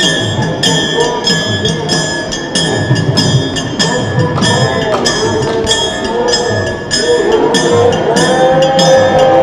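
Background music with a steady percussive beat, about two hits a second, over a melodic line.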